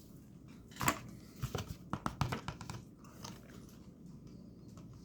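Biting into a Dubai-style milk chocolate bar with a pistachio and crunchy kataifi filling: one sharp snap about a second in, then a couple of seconds of crunchy chewing.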